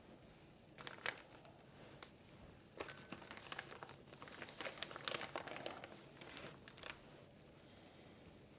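Faint, intermittent crinkling and rustling with scattered light clicks, as from plastic packaging being handled.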